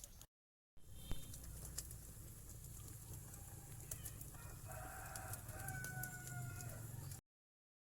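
A chicken crowing, one held call about four and a half seconds in, over a low steady hum. The sound drops out briefly near the start and cuts off near the end.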